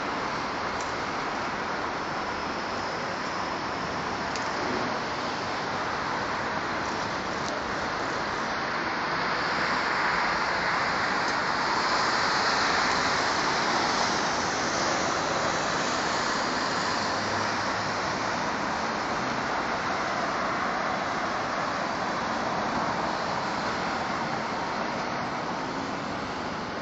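Steady road traffic noise, an even rushing hiss that swells for several seconds in the middle and eases off near the end.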